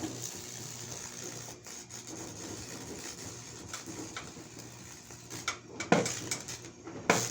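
High-voltage wood burner built from a microwave oven transformer, buzzing with a steady electrical hum under a fizzing crackle as the arc burns through the wood. Two sharper, louder snaps come near the end.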